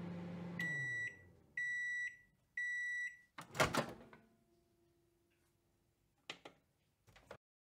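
Microwave oven finishing: its running hum winds down, then three high beeps about a second apart signal that the cooking time is up. A loud clunk follows as the door is released, then two short clicks near the end.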